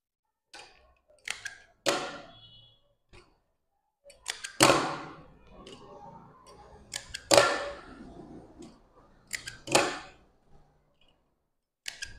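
A series of sharp knocks and slaps, about eight at uneven intervals, some in quick pairs; the loudest come about four and a half and seven and a half seconds in. They come from cloth being gathered and pressed by hand on a wooden table.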